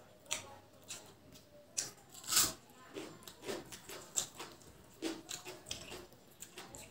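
Close-up wet chewing and lip smacks of someone eating curry and rice by hand, with squelches of fingers mixing rice and curry on the plate. Irregular short smacks throughout, the loudest about two and a half seconds in.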